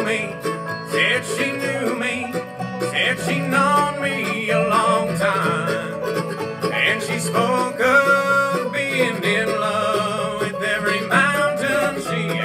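Acoustic bluegrass band playing an instrumental intro: rapid banjo picking over guitar and upright bass, with a melody line on top.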